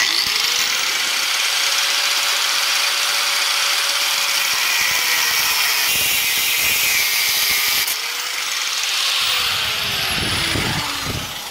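Angle grinder with a new cutting disc cutting through a chrome handlebar tube: a loud, harsh cutting noise over the motor's whine, which sags under load a couple of times and winds down near the end.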